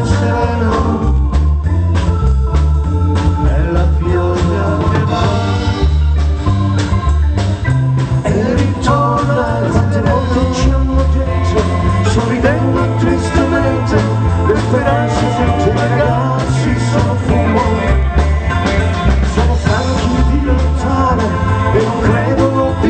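Live band playing an instrumental passage: drums and bass keeping a steady beat under an electric organ melody.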